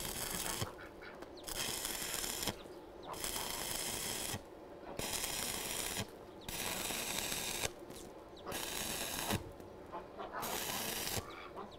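Electric arc welding a reinforcing rebar onto a manure spreader: the arc crackles and sizzles in short runs of about a second each, stopping and restarting about eight times as the bar is tacked on.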